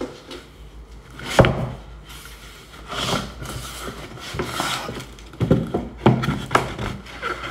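A thin plywood shipping box being opened and handled: a series of wooden knocks and thunks with scraping and rubbing between them. The loudest knock comes about a second and a half in.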